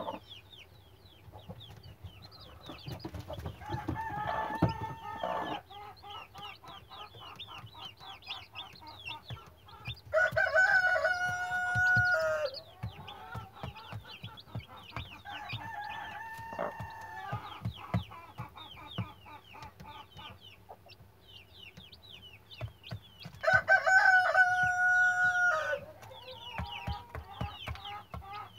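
Newly hatched chicks peeping continuously in short high chirps, while a rooster crows four times, each a held call of about two seconds; soft scattered taps of the hen pecking at cracked corn run underneath.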